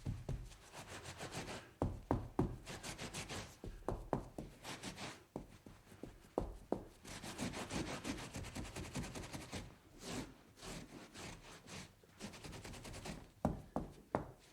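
Wiping up a spill: runs of quick rubbing strokes across a surface, with a few sharper knocks between them.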